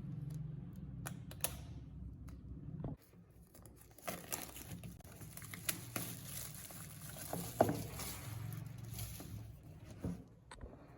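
Packaging being handled and unwrapped by hand: crinkling and rustling with scattered taps and clicks, the sharpest click about seven and a half seconds in. A low hum stops about three seconds in.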